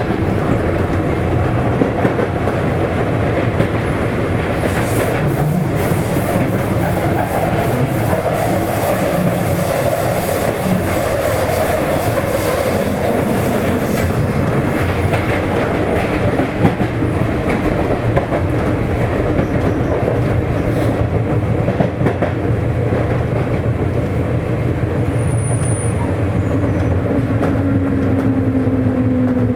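Running noise inside a Sotetsu 8000 series electric train motor car at speed, with wheels clicking over the rail joints. A faint tone from the Hitachi IGBT-VVVF drive and its traction motors runs underneath. Near the end a low tone falls in pitch.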